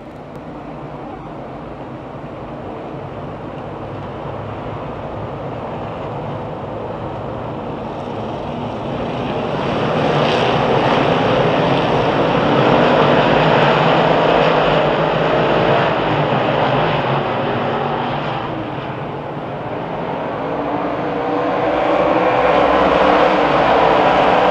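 A pack of 358 dirt modified race cars with small-block V8 engines running on the track, the engine noise building steadily louder and swelling twice as the field comes around.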